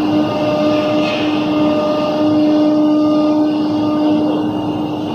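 ATC CNC router running, its spindle down on a wooden sheet: a steady high whine from the spindle over a loud, steady rush of machining noise.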